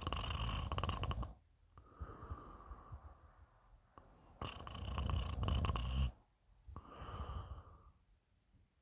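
A person snoring in sleep: two loud, fluttering snores about four seconds apart, each followed by a quieter breath.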